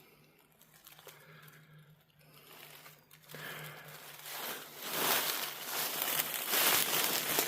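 Crunching and rustling that starts a few seconds in and grows louder, like someone walking through snow, after a near-silent start.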